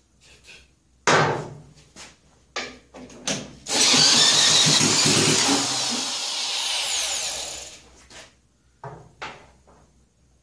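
A 6.3-amp corded electric drill, driving a socket adapter, cranks over the 1959 Mitsubishi Silver Pigeon's 125 cc engine: a short burst about a second in, two quick blips, then about four seconds of loud steady spinning that dies away. The engine does not fire.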